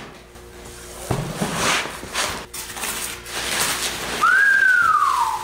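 Cardboard and packing material rustling and scraping as packing is pulled out of a shipping box, ending in one loud, drawn-out squeak that rises and then slides down in pitch.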